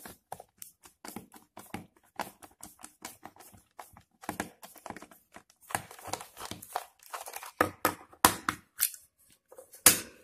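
Small precision screwdriver turning out the screws on the underside of a plastic Microsoft 1113 computer mouse: a busy run of small clicks and scrapes from the bit and the plastic being handled. A loud plastic click near the end as the shell comes apart.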